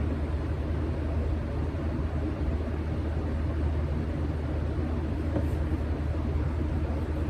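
Steady low rumble with a faint hiss above it, no speech.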